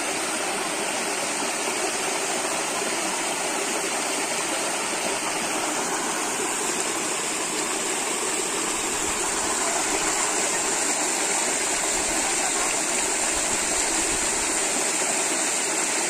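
Steady rushing of a mountain stream cascading over boulders into a rock pool.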